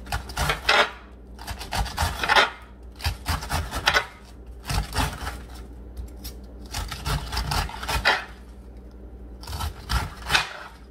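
Knife slicing through a head of green cabbage on a cutting board: crunching cuts in uneven bursts, about seven groups of strokes with short pauses between.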